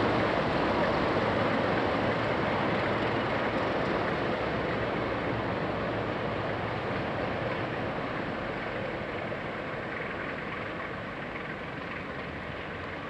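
Class 37 diesel locomotives' English Electric V12 engines running as the train pulls away, the sound fading steadily as it recedes.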